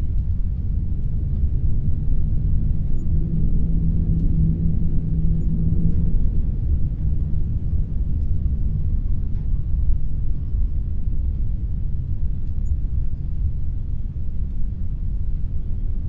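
Wind blowing steadily, a deep low rush with little high hiss. About three seconds in, a low moaning tone sounds for about three seconds.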